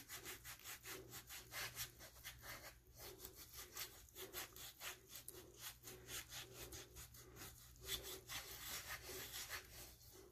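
A handheld foot file rasping against the heel in quick back-and-forth strokes, a few a second, faint, scraping off dry dead skin.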